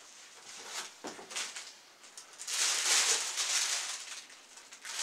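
Plastic clothing bags crinkling and rustling as packaged garments are handled and lifted out of a cardboard box. There is a short rustle about a second in and a longer one in the middle.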